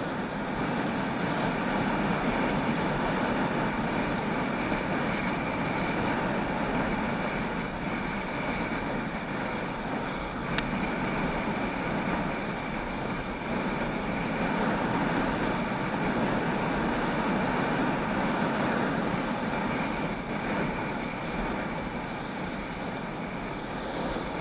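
Steady scraping rush of a board or skis sliding over packed, groomed snow on a downhill run, swelling and easing with the turns, with wind rushing over the microphone.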